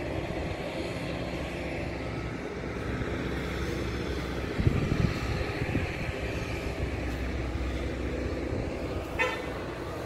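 Steady rumble of outdoor road traffic, with a thump about halfway through and a short car-horn toot near the end.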